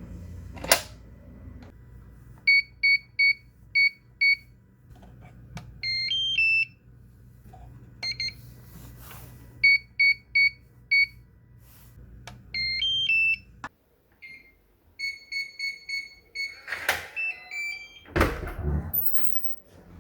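Digital door lock keypad beeping as a code is entered, each run of four to five key beeps followed by a short rising three-note chime as the lock opens; this happens three times. A sharp click comes just after the start, and a clatter of the latch and door handle comes near the end.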